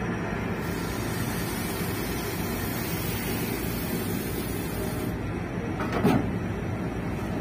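Ro-ro ferry's engines running with a steady low drone, heard from the open bow deck. A high rushing hiss comes in for the first few seconds, and a brief sharp, falling sound stands out about six seconds in.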